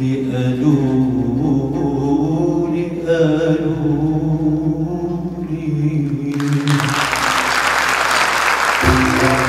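Male singer's voice holding a long, wavering Arabic vocal phrase, the band nearly silent under it. About six seconds in the audience breaks into applause, and near the end the band comes back in under the clapping.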